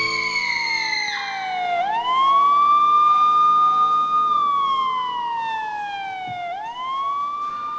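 Siren wailing: the pitch slides slowly down, sweeps quickly back up, holds, then slides slowly down again, going through about two cycles.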